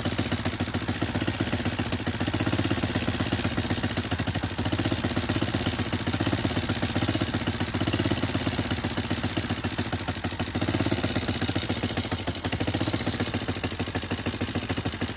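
Honda Foreman 400 ATV's single-cylinder four-stroke engine idling steadily with a ticking noise from the motor, which the owner traces to piston slap: a seized wrist pin letting the piston score the cylinder.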